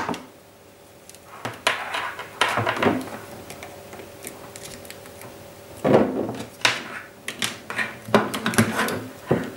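Hands fitting a plastic SATA-to-USB adapter onto a bare 3.5-inch hard drive and handling its power adapter and cable: scattered clicks and knocks of plastic against the drive's metal case and the desk. A cluster comes about two seconds in, and a busier run fills the last few seconds.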